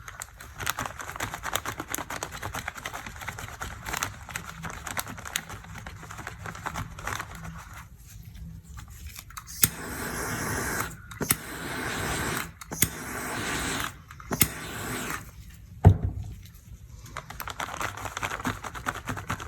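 Small handling sounds at a work bench: light clicks and crackles of things being picked up and moved. Then four short stretches of hiss, each about a second long, starting and stopping sharply.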